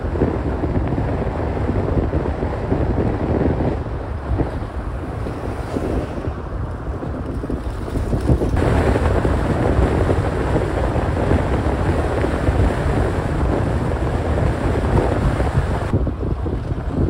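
Wind buffeting the microphone from a moving car, over a steady low rumble of road noise.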